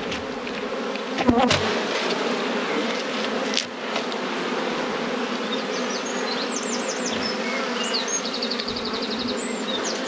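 Honeybees buzzing steadily in a thick hum around an open nucleus hive as its frames are worked, with a brief knock about a second in.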